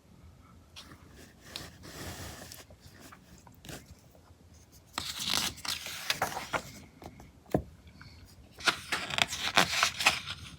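Glossy magazine pages being turned and handled, rustling and scraping in about three bursts.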